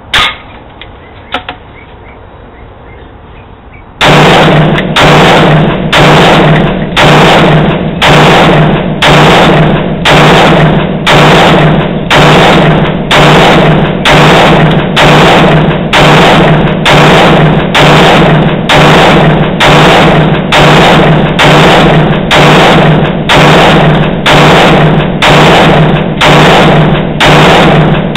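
A couple of sharp bangs in the first two seconds. Then, about four seconds in, a loud music track starts: a heavy drum beat hitting a little more than once a second over a steady bass.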